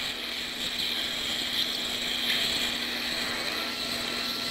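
High-speed otologic surgical drill with a diamond burr, running steadily as it grinds through mastoid bone.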